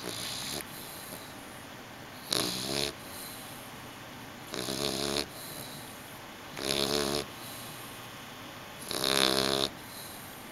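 A sleeping pet snoring in slow, regular breaths, one snore roughly every two seconds.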